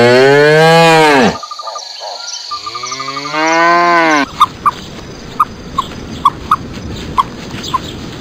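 Cattle mooing: two long, loud moos about a second apart, each sliding down in pitch at its end. After them, short high chirps repeat unevenly over a faint steady background.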